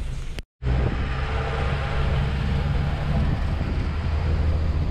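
Safari canter driving along a dirt forest track, heard from inside its open-sided cabin: a steady engine rumble with road and rattle noise. There is a brief dropout about half a second in.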